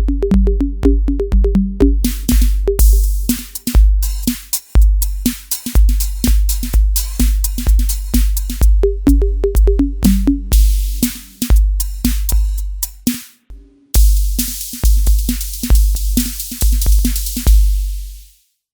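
Roland TD-316 electronic drum kit played through an electronic-style preset: a steady kick drum on every beat with pitched electronic tom hits, hi-hat ticks and crash cymbals. It breaks off briefly about two-thirds of the way through, comes back in with a crash, and stops just before the end.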